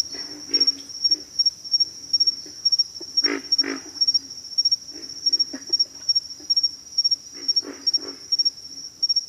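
Pig frogs calling: short, low grunts, often in quick pairs or short runs, the loudest pair a little past three seconds in. Behind them a steady, high-pitched insect chorus pulses rapidly.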